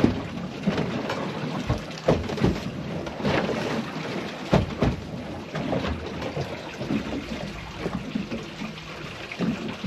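Water splashing and irregular thumps and knocks at the side of the boat as a hooked lemon shark thrashes near the surface, over a low rumbling wash. The strongest knocks come about two seconds in and again around four and a half to five seconds in.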